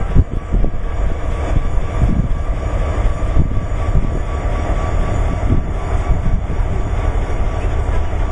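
Buckingham Branch Railroad diesel locomotive's engine running at close range: a loud, steady low rumble with a faint steady whine above it, and a few knocks in the first couple of seconds.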